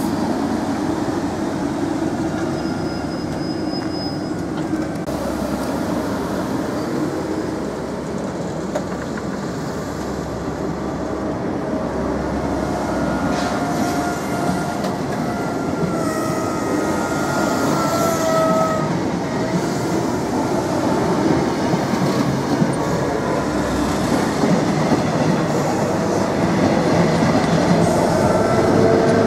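Locomotive-hauled passenger coaches rolling past on the rails, a steady rumble of wheels on track with thin intermittent wheel squeals in the middle. The sound grows louder near the end as the electric locomotive draws level.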